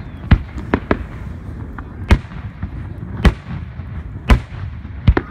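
Aerial fireworks shells bursting: about seven sharp bangs at uneven intervals, the loudest roughly two, three and four seconds in, over a steady low rumble.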